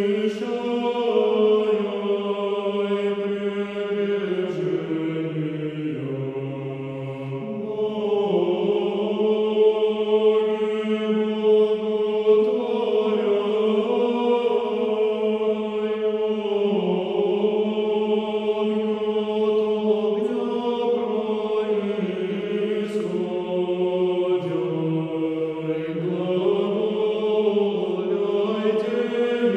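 Orthodox church choir chanting: slow, sustained sung lines, with long held notes that shift pitch gradually.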